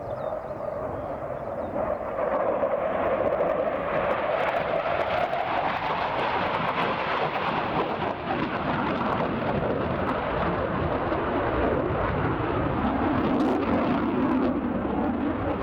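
Panavia Tornado IDS jet flying a display, its two RB199 turbofans making a loud, continuous jet noise; the tone drops lower near the end.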